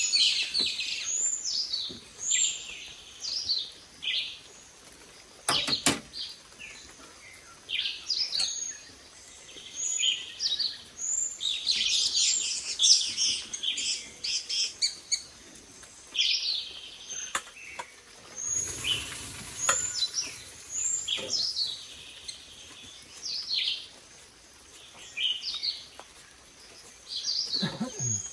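Several wild birds chirping and whistling in quick clusters of short, high calls. A single knock sounds about six seconds in, and a brief rush of noise comes about two-thirds of the way through.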